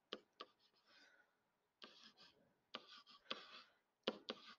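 Faint stylus taps and short scratchy strokes on a writing surface as numbers are handwritten, in irregular bursts with gaps between them.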